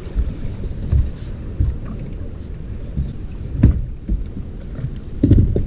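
Wind buffeting the microphone, with several knocks and thuds as fishing rods are handled on the deck of a bass boat. The loudest knocks come a little past halfway and near the end.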